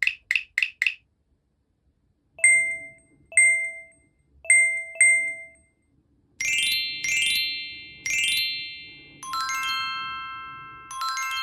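Added cartoon-style sound effects: a quick run of short plucked notes for the first second, then three pairs of short bright dings, then five struck chime or glockenspiel-like notes, each ringing out slowly.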